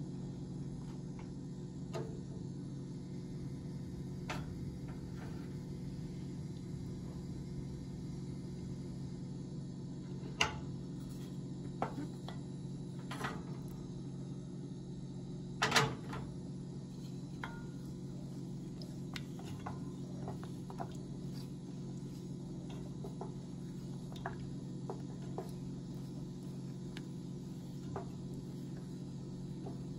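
Wooden spoon stirring in a copper saucepan, making scattered light clicks and knocks against the pan, with one louder knock about halfway through, over a steady low hum.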